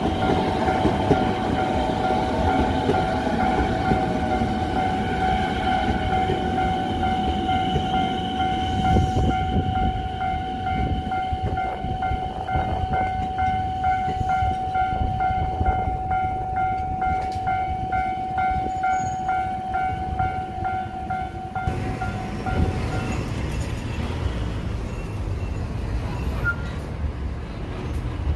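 Japanese level-crossing alarm bell ringing in a fast, even rhythm while an electric train runs past, its wheels rumbling on the rails. The bell stops near the end and the train's rumble carries on.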